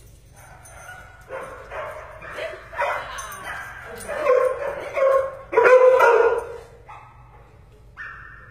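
Doberman barking, a run of about half a dozen barks with the loudest and longest one about six seconds in, then a couple of short high whines near the end.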